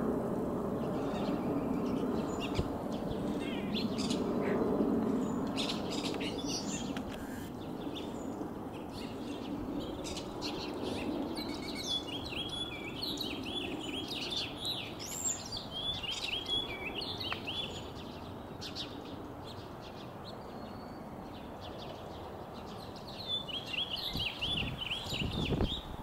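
Distant jet engine rumble from a climbing Boeing 777-300ER's GE90 engines, fading steadily as the airliner moves away. Small birds chirp and trill over it midway and again near the end.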